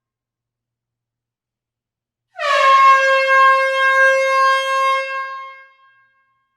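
One blast of an air horn, starting about two and a half seconds in and held steady for about three seconds, its pitch dipping slightly as it starts. It fades out with a hall echo.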